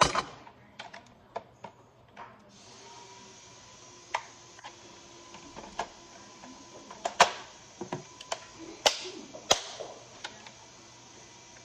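Plastic toy soft-bullet blaster being handled and worked: a dozen or so irregular sharp plastic clicks and knocks, the loudest at the start and two more about seven and nine seconds in. A faint steady hiss sets in about two seconds in.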